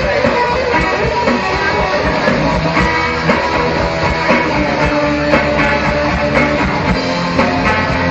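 Live rock music: a band playing with guitars prominent over a steady beat.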